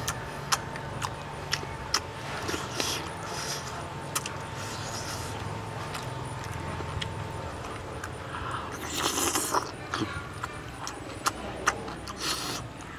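Someone eating: sharp clicks of a metal spoon against a plate and bones, with a few short breathy hisses and mouth sounds, over a steady low hum.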